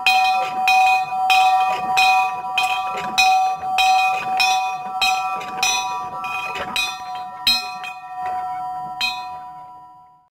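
A post-mounted bell rung by its pull rope: the clapper strikes about twice a second, with the bell ringing on between strikes. The strikes stop near the end and the ringing dies away.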